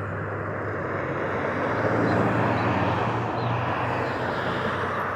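A vehicle passing by: its noise swells to loudest about two seconds in, then slowly fades, over a steady low hum.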